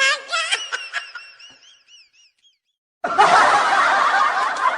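Laughter with wavering high notes fades out over the first second and a half. After a short silence, a loud burst of many voices laughing together starts abruptly about three seconds in.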